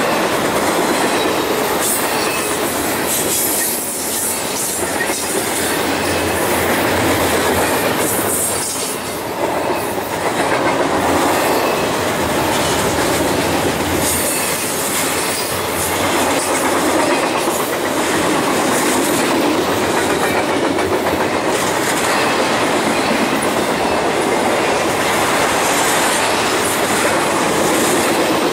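Double-stack intermodal train's loaded container well cars rolling past: a steady sound of steel wheels running on the rails, with brief sharp clacks and squeals now and then.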